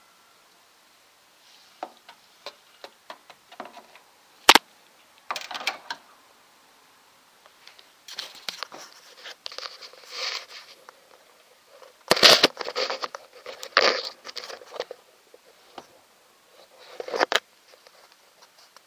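Handling noise at close range: irregular clicks, knocks and short scrapes against the car's underside, with a sharp knock about four and a half seconds in and a cluster of louder scrapes a little past the middle.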